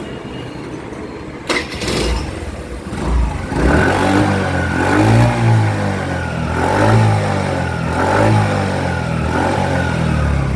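TVS Jupiter BS3 scooter's single-cylinder four-stroke engine starting about a second and a half in, then revved and released several times. It runs without popping from the silencer on closing the throttle, showing that the replacement secondary air control valve has cured the backfiring misfire.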